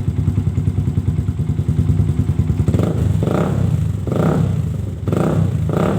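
2009 Yamaha Vixion's 150 cc single-cylinder four-stroke engine breathing through a PDK stainless-steel racing exhaust with a bassy note. It idles with an even low pulse, then from about three seconds in is revved in four short blips about a second apart.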